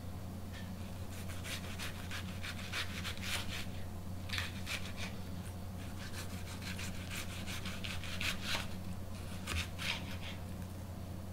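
Kitchen knife dicing an onion on a plastic cutting board: several runs of quick, crisp cuts, each slicing through the onion and meeting the board, over a low steady hum.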